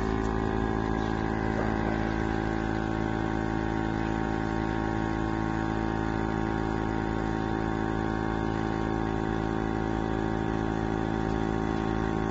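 Laboratory electrode film coater running an automatic coating pass: a steady mechanical hum with many fixed tones, from the vacuum chuck's pump and the drive pushing the doctor-blade applicator across the foil.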